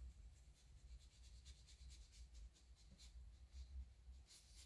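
Faint, quick strokes of a paintbrush laying gouache onto paper, a few strokes a second, over a steady low hum.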